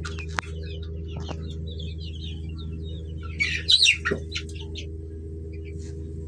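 Chickens calling: a run of short high chirps, then a loud burst of squawking calls about three and a half seconds in that ends in a falling note. A steady low hum runs underneath.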